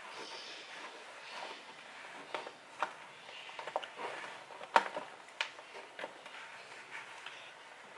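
Hands kneading sticky bread dough in a plastic bowl while extra flour is worked in, giving soft rubbing and pressing sounds. Several short sharp clicks and knocks come from the middle stretch, the loudest a little before halfway.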